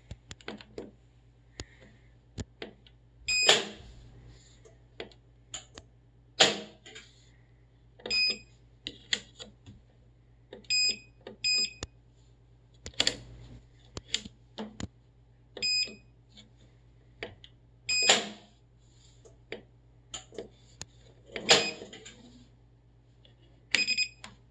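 Whirlpool Duet front-load washer's control panel giving short electronic beeps, some in quick pairs, as its buttons are pressed, mixed with clicks and several louder knocks. The washer is failing to start a normal cycle.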